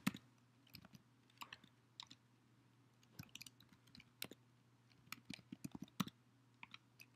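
Faint computer keyboard keystrokes, sharp clicks in short, irregular runs with pauses between them.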